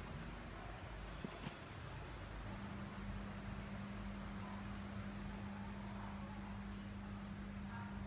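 Crickets trilling continuously at night in a fast, steady, high-pitched pulse, with a low steady electrical-sounding hum underneath that drops out early on and returns about two and a half seconds in. A couple of faint clicks come at about one and a half seconds.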